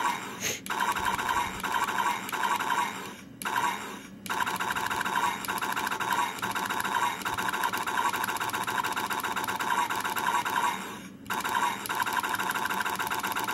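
Lawgiver prop's electronic gunfire sound effect from a small speaker on an Arduino circuit, set off by a pushbutton in armor-piercing mode: a fast buzzing rattle that stops briefly twice, about three and a half seconds in and again about eleven seconds in.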